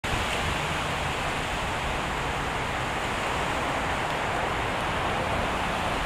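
Steady, even outdoor background hiss, with no bird calls and no separate events.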